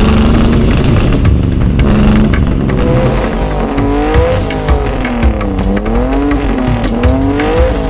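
Car engine revved repeatedly through a loud aftermarket exhaust. The pitch holds fairly steady at first, then about three seconds in it rises and falls again and again, roughly once a second.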